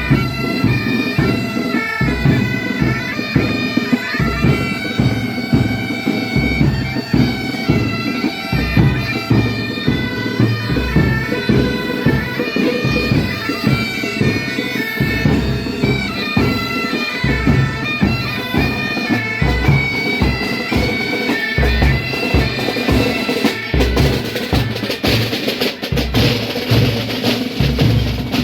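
Bagpipes playing a tune over drums, with a steady beat of bass-drum strokes; the snare-drum playing grows busier near the end.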